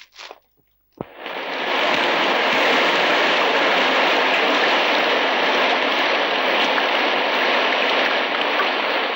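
Heavy rain pouring down, a loud steady hiss that starts abruptly about a second in, after a brief rustle of trampled hay.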